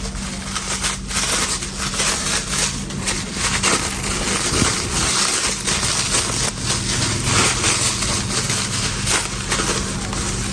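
Taped parcel wrapping being torn and unwrapped by hand: a continuous run of crackling, crinkling and tearing of tape and plastic.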